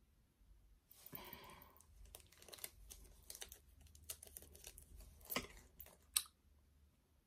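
Faint crinkling and rustling with scattered small clicks, as small objects are handled; a sharper click comes about six seconds in.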